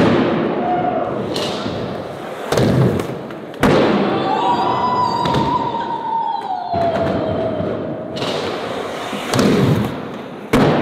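Skateboard rolling on flat ground, broken by about five sharp thuds of the board popping and landing. Midway a held tone slides down in pitch.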